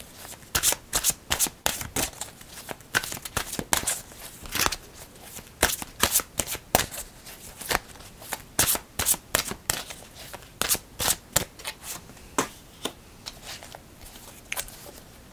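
The Lover's Path tarot deck shuffled by hand: a quick, irregular run of card flicks and snaps, several a second, thinning out near the end.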